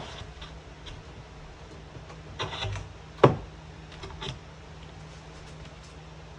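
A piece of plywood being handled and set down: a brief scrape, then one sharp wooden knock about three seconds in and a lighter knock a second later.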